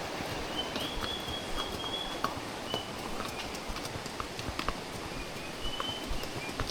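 Horse hooves clip-clopping on a trail, irregular knocks over a steady hiss, with a thin high whistle twice.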